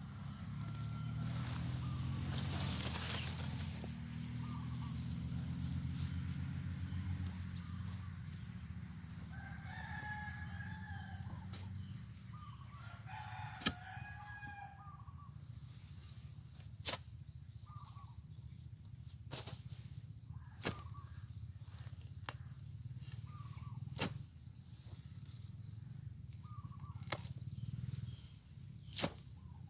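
A rooster crowing and chickens clucking, over a low steady hum, with sharp knocks every few seconds in the second half.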